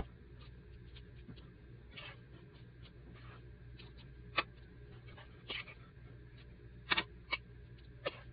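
Soft, scattered taps and clicks of a big spoon dropping and flattening no-bake cookie mixture on parchment paper, about half a dozen in all, over a low steady hum.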